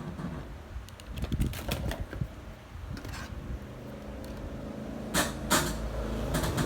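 Scattered clicks and knocks of things being handled, over a low steady hum; the loudest knocks come a little past five seconds in.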